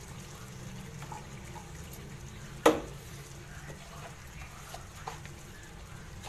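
Goat-head curry simmering softly in oil in a wok, with faint bubbling and scattered small ticks, and one sharp knock a little under three seconds in.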